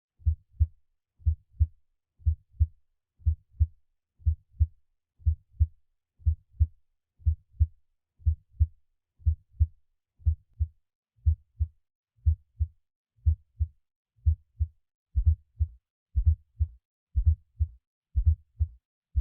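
Heart sounds heard through a stethoscope: a steady, regular lub-dub, two low thumps about a third of a second apart, repeating about once a second. From about fifteen seconds in, each beat carries a third, extra sound, as with an S3, an S4 or a split S2.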